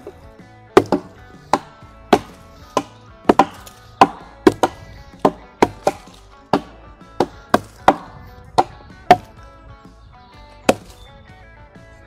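A tactical flashlight fixed to a stick is beaten repeatedly against a rotten log: about twenty sharp wooden knocks at roughly two a second, with a short pause near the end. Background music plays underneath.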